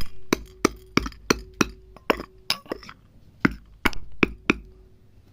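Black peppercorns being pounded to break them: a run of sharp clinking strikes, about three a second, with a faint ringing tone from the struck vessel. The strikes stop near the end.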